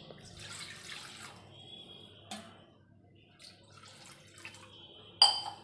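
Water poured from a small cup into an aluminium kadai, splashing onto the metal, with a short click a little over two seconds in. Near the end comes a sharp clink, the loudest sound.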